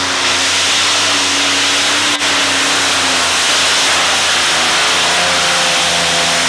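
Modified pulling tractor's supercharged engines running flat out as it drags the weight sled down the track. The engine note is loud and steady with a strong hiss, and its pitch eases slightly lower as it goes, with a momentary dip about two seconds in.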